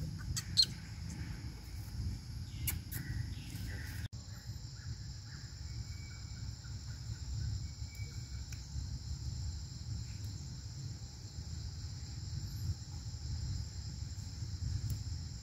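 Steady high-pitched insect drone over a low constant rumble, the drone starting abruptly at a cut about four seconds in; before it, a few sharp clicks and rustles.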